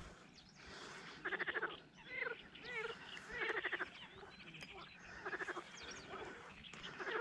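Frogs croaking from the water in rapid pulsed trains of about half a second, one roughly every two seconds, with shorter gliding calls in between.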